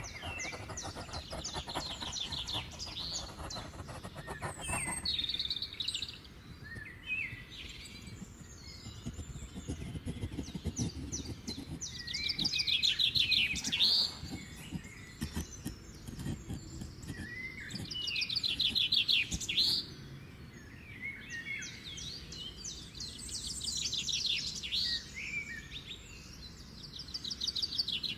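Small birds chirping and singing in repeated quick trills that come and go in spells, over the soft scrape of a hand carving gouge cutting into wood.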